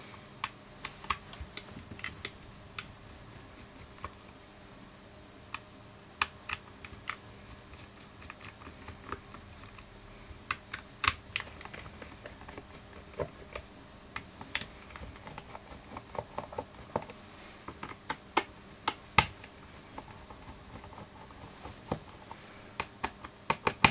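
Small screws being undone from the plastic case of a Garmin eTrex 30 handheld GPS with a precision screwdriver: light, irregular clicks and ticks of the driver bit on the screw heads and the screws turning, scattered through with short pauses.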